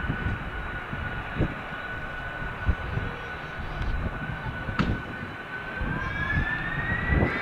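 Airliner engines whining steadily, the whine rising in pitch near the end as the engines spool up. Strong wind rumbles and buffets on the microphone underneath.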